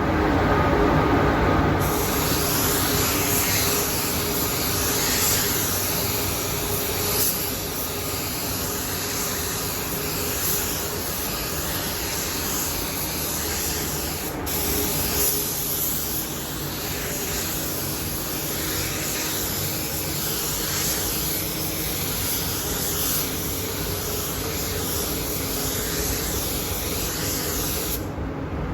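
Compressed-air paint spray gun hissing steadily as it sprays, starting about two seconds in and cutting off near the end, with a brief break around the middle. A low steady hum runs underneath.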